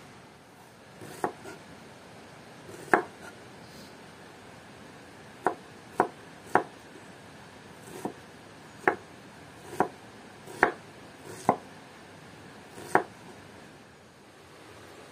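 Kitchen knife chopping food on a cutting board: about a dozen sharp, unevenly spaced strokes with pauses between them.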